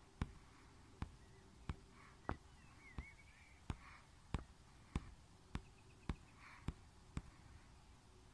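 Sharp, regular clicks, a little under two a second, over faint bird chirps.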